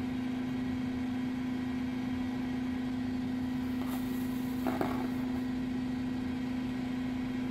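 A steady low hum, such as an appliance or electrical hum, holding one pitch throughout, with a brief faint handling sound a little past the middle.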